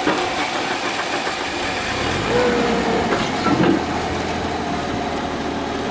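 A machine's motor running steadily, with a low hum that rises and then holds about two seconds in.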